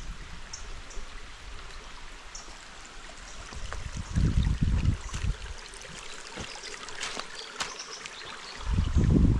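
Water of a forest creek running steadily over rocks. There are two low rumbles, one about four seconds in and one near the end, and a few light clicks.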